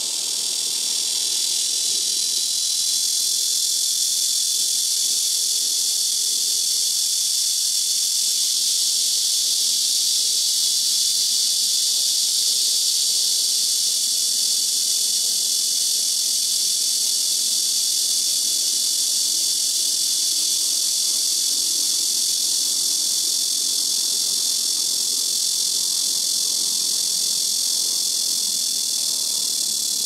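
Black cicada (Cryptotympana atrata) calling: one continuous, very loud, shrill buzz that builds a little over the first few seconds and then holds steady.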